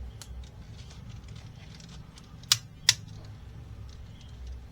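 Two sharp plastic clicks a little under half a second apart, just past the middle, with faint handling ticks around them: the arm parts of a plastic transforming robot figure being moved by hand.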